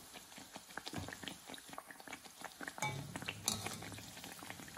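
Hot oil bubbling and crackling with many small pops as a teler pitha of rice-flour and date-palm jaggery batter deep-fries in a wok. About three seconds in there is a brief voice-like sound.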